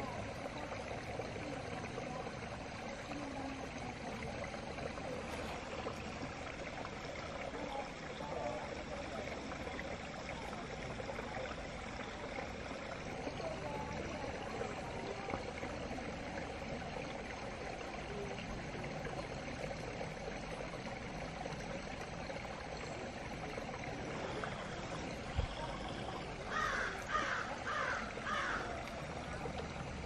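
A small woodland stream running steadily. Near the end a bird calls four times in quick succession, just after a single low thump.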